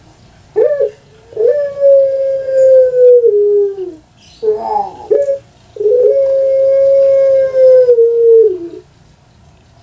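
Puter pelung (Barbary dove) cooing. A short note about half a second in leads into a long held coo of about two and a half seconds that drops in pitch at its end. After a short warbling coo comes a second long held coo of about three seconds, also dropping at the end.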